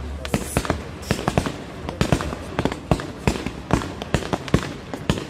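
Fireworks going off in quick succession: a rapid, irregular string of sharp bangs, several a second.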